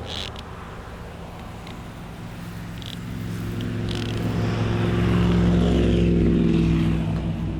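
A motor vehicle's engine hum, growing steadily louder through the middle and easing off near the end, with a few light clicks in the first seconds.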